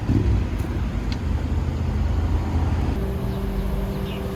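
Steady low rumble of a fishing boat's engine, with a steady low hum coming in about three seconds in.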